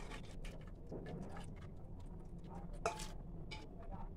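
Metal ladle stirring a thick curry in a pressure cooker: soft scrapes and a few light clicks of metal on metal, the sharpest about three seconds in.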